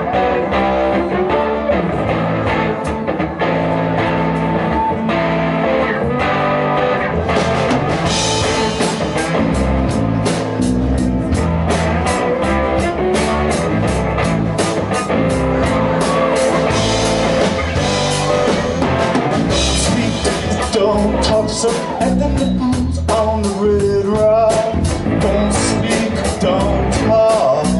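Live rock band playing an instrumental intro: electric guitars with a drum kit, the drums coming in with a steady beat about seven seconds in.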